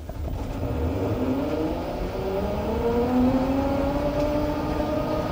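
Auto-rickshaw engine running as the vehicle drives, its pitch rising steadily over the first few seconds and then holding.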